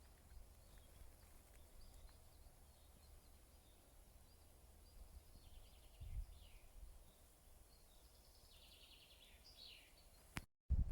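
Faint songbirds chirping and trilling in short phrases, busiest in the second half, over a low rumble. A sharp click and a brief cut-out come near the end.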